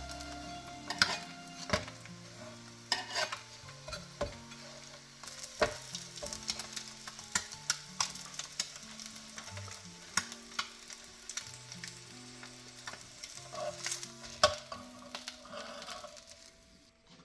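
Food frying and sizzling on an electric griddle, with scattered sharp clicks, over background music with a stepping bass line.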